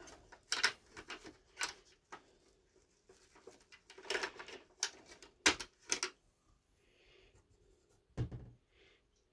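Hard plastic toy vehicle parts being handled and rummaged through: a string of irregular short clicks, clacks and rubbing scrapes, the sharpest about halfway through and one more near the end.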